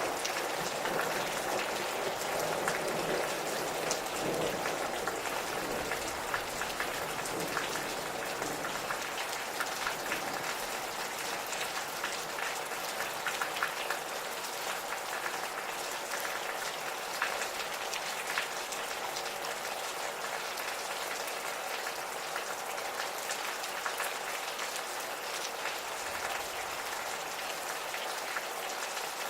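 Gentle steady rain, with many individual drops ticking on surfaces. A low, distant rumble of light thunder fades away over the first several seconds.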